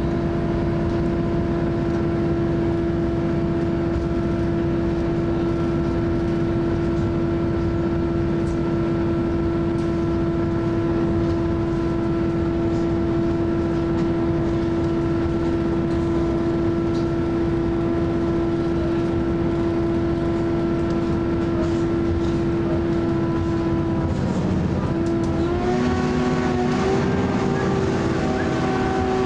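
Diesel railcar running at speed, heard from inside the carriage: a steady engine whine over a constant rumble. About 24 seconds in the whine breaks off, then comes back higher, stepping up in pitch.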